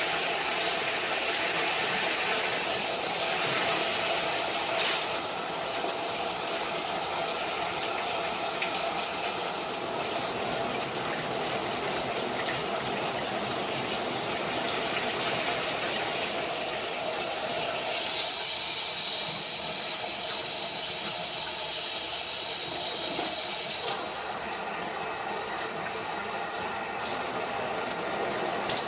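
Water spraying steadily from a handheld shower head, a continuous hiss broken by a few sharp clicks.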